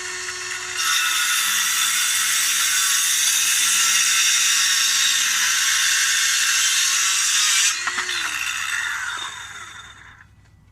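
Circular saw cutting through plywood: the motor runs free for a moment, gets louder as the blade goes into the board about a second in, cuts steadily for about seven seconds, then is let go and winds down to a stop.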